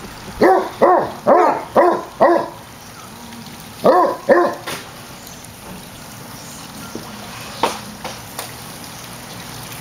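A dog barking in play: five quick barks, each rising and falling in pitch, then two more about four seconds in.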